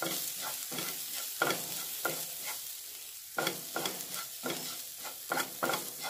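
Chopped onions and ground spices sizzling in a little oil in a non-stick frying pan while a spatula stirs them, scraping and tapping against the pan in irregular strokes, with a brief pause about halfway. The spices are being fried until their raw smell goes.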